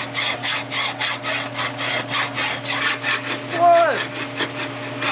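Hacksaw cutting through a pipe with quick, regular back-and-forth strokes, with a short falling squeak a little past the middle.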